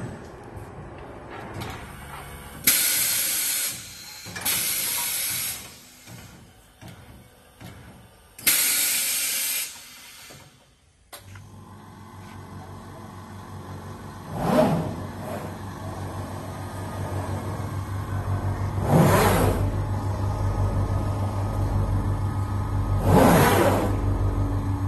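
Glasino multifunction CNC glass cutting table at work: three short, loud hisses of air in the first ten seconds. After a short break comes a steady motor hum, with three brief rising-and-falling surges a few seconds apart.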